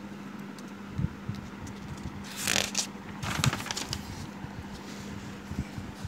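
A page of a school textbook being turned: paper rustling, loudest a little over two seconds in, with a second shorter rustle about a second later, over a faint steady low hum.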